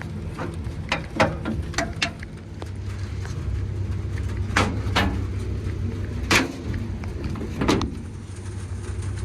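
Rooftop HVAC fan unit running with a steady low hum. About ten sharp clicks and knocks come at irregular moments, bunched in the first two seconds and then singly.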